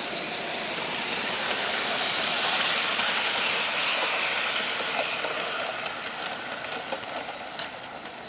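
Regner live-steam model of a Saxon VII K narrow-gauge locomotive running past with its freight wagons: a steady hiss of steam and running gear with small clicks of wheels on the track. It is loudest about three seconds in, then fades as the train moves away.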